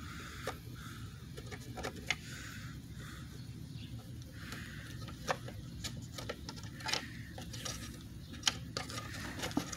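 Scattered light clicks and taps of a plastic upper intake manifold and its new rubber gasket being handled and fitted, a few seconds apart, over a steady low background noise.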